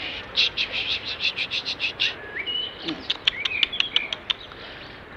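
Bird calls: a fast chattering run of about a dozen notes, then a few short rising chirps and a quick string of sharp clicking chirps.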